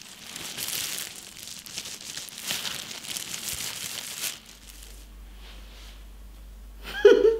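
Thin disposable plastic gloves crinkling and rustling as hands rub through wet, dye-soaked hair, stopping about four seconds in. Near the end, a brief loud burst of voice.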